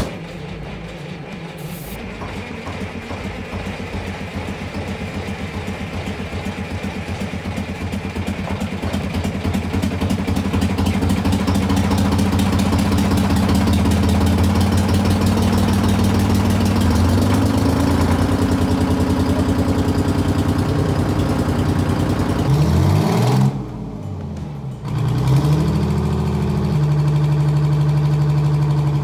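Terex 82-30 crawler dozer's diesel engine running after being brought back to life following years of sitting. It pours out smoke and builds up steadily, picking up speed partway through. Near the end the sound briefly drops away and comes back as a steadier, deeper drone.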